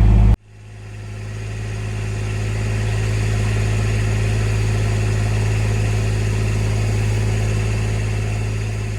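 A vehicle engine running steadily at a constant speed, a low even hum that fades in over the first couple of seconds and starts fading out near the end.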